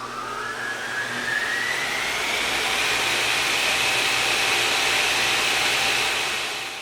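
An electric machine motor spinning up: a whine rises in pitch over the first few seconds, then holds as a steady high whine over a rushing hiss. It fades out quickly near the end.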